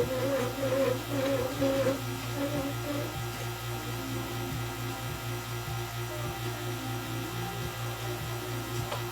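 Steady low electrical hum, with a wavering voice-like tone over the first three seconds.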